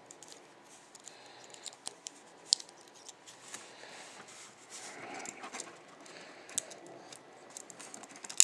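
Small metal parts of a disassembled Chubb pin-tumbler padlock being handled: scattered light clicks and faint scraping, with a sharper tick about two and a half seconds in and another at the end.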